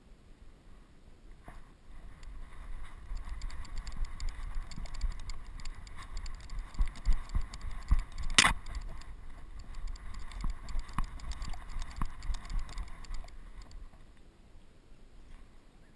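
Handling noise of a camera harnessed on a moving dog's back: irregular low thuds and rubbing as she trots, with one sharp click about eight seconds in.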